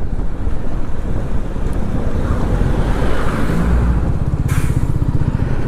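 Wind buffeting the microphone of a moving motorcycle, with the bike's engine running beneath it; the engine's low, evenly pulsing note comes through more clearly about halfway in.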